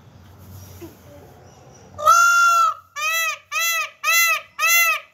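Indian peafowl (peacock) giving its loud call: five ringing, honking calls starting about two seconds in, one longer one followed by four shorter ones about every half-second, each rising and falling in pitch.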